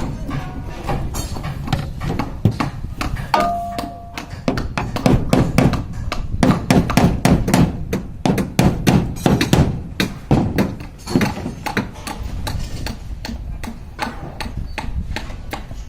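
Hammer knocking in quick, irregular strikes, thickest in the middle stretch, with a short high tone about three and a half seconds in.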